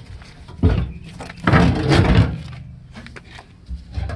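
Parts and tools being handled while working on a fuel pump assembly: a knock about half a second in, then a longer rattling clatter around the middle, over a steady low hum.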